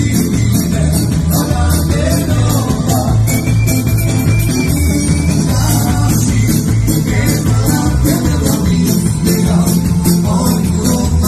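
Live Romani band music: a male singer on a handheld microphone over electric bass, keyboard, drum kit and electric guitar, played loud with a steady fast beat.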